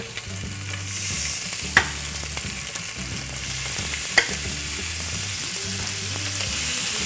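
Raw chicken breasts sizzling steadily on a hot ridged grill pan as they are laid down with metal tongs, with two sharp clicks of the tongs, at about two seconds and about four seconds in.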